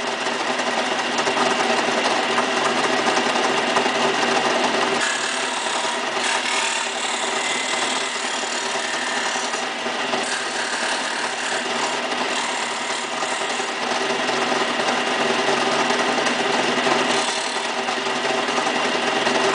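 Craftsman belt-and-disc sander motor running steadily, with a rasping hiss that swells several times as the corners of a Lexan polycarbonate sheet are pressed against the sanding disc to round them off.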